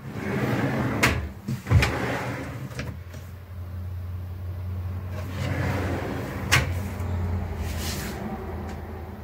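A large wardrobe drawer on partial-extension runners is pulled out and pushed back, the runners making a rolling rumble, with several sharp knocks as it meets its stops. Near the end a hinged cabinet door is swung open.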